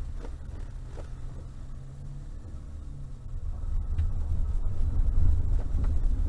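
Cabin noise of a Mercedes-Benz 4x4 driving off-road: a steady engine hum with low rumble, which grows louder from about three and a half seconds in, with a few faint knocks and rattles from the rough track.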